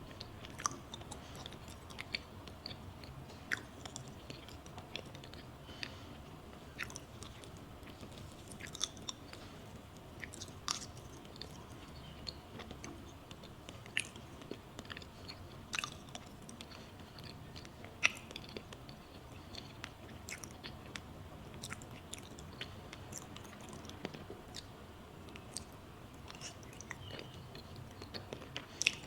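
Close-miked chewing of a soft matcha pudding crepe, with many irregular sharp, wet mouth clicks and smacks.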